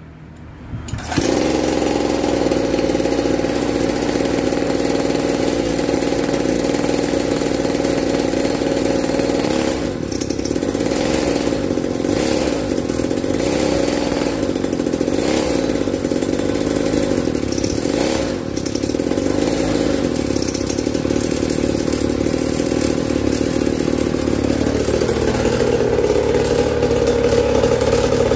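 ZK 50cc two-stroke engine of a stand-up gas scooter, breathing through a racing expansion-chamber exhaust, catches about a second in and then runs steadily. It dips briefly twice, and near the end it gets a little louder and higher.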